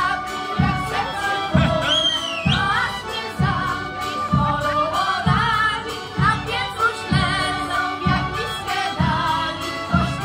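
A Polish folk song-and-dance ensemble singing a folk song in chorus, with instrumental accompaniment and a steady low beat a little faster than once a second.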